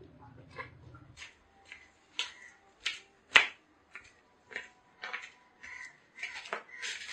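Footsteps in flip-flops slapping on wet concrete, a sharp slap about every half second, the loudest about three and a half seconds in.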